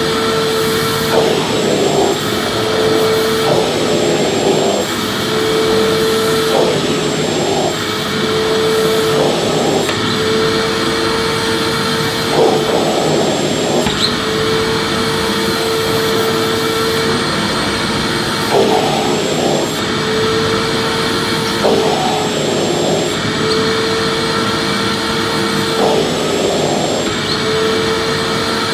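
Vacuum cleaner motor running continuously as a steady, loud whir, its hum tone briefly breaking up every second or two.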